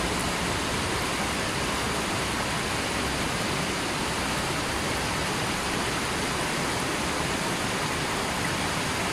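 River or stream water rushing steadily, an even, unbroken hiss of flowing water.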